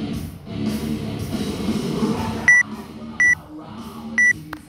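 Rock music playing, with three short high-pitched beeps from a workout timer about a second apart in the second half, counting down the final seconds of the timed workout.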